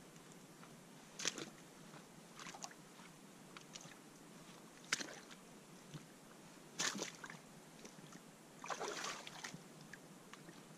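A handful of brief scuffs, crunches and small splashes, spread a second or two apart with the longest near the end, from someone standing in lakeside shallows handling a plastic bait boat at the water.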